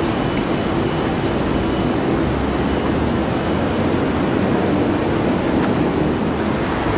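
Steady rumble and hiss of downtown street traffic, with a constant low hum.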